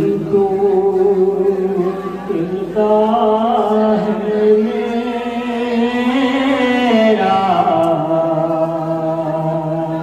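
A man's voice chanting a noha, a Shia mourning lament, in long drawn-out notes that step between pitches. About two-thirds of the way through it climbs higher, then falls back.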